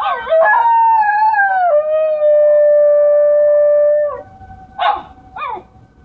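Basenji howling: a long held howl that wavers at first, then holds steady before falling away about four seconds in, followed by two short falling yelps.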